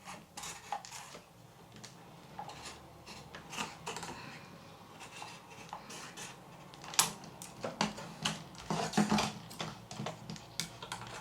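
Irregular small clicks and snips of plastic propeller blades on a DJI Mini 3 Pro being cut through with hand cutters, with a sharper snap about seven seconds in and a quick run of clicks around nine seconds.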